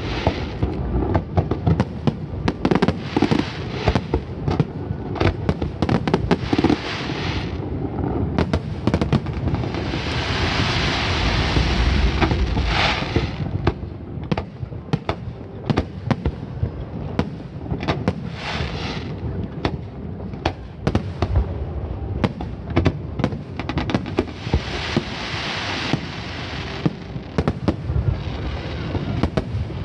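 Aerial fireworks show at close range: a rapid, unbroken string of booms and sharp bangs, with stretches of crackling hiss from crackle shells, the densest about ten to thirteen seconds in.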